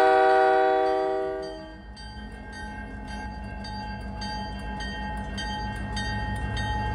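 Locomotive air horn sounding a multi-note chord that fades out over the first two seconds, followed by a steady low hum with a faint regular ticking about three times a second.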